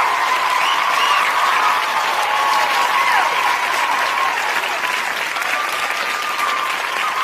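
A crowd cheering and applauding: dense clapping, with shouts and whoops rising and falling above it.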